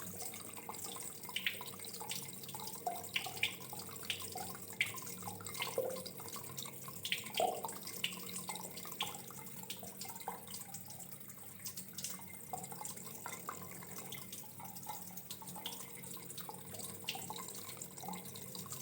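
Relaxing water sound: a steady trickle of running water with many small drips and splashes scattered throughout.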